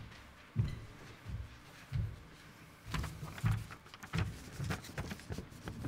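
A series of soft, low thumps and knocks at an irregular pace of about one to two a second.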